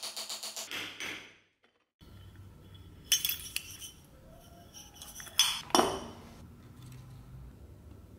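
Quick, even scraping strokes of a hand tool on the brass lid of a metal powder box, about six a second, fading out about a second in. After a short silence, sharp metallic clinks as the box's hinged metal lids are handled, loudest twice a little past the middle.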